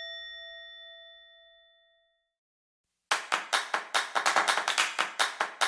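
A bell-like ding decays away over about two seconds. After a second of silence, a fast, even run of sharp percussive hits starts, about five a second.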